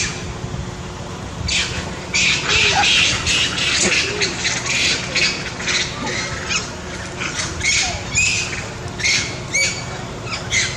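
A bird squawking in a rapid series of short harsh calls, several a second, starting about a second and a half in, over a low steady hum.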